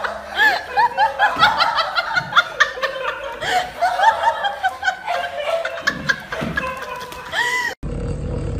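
People laughing in quick high-pitched bursts of giggles. Near the end it cuts off suddenly to a steady low hum.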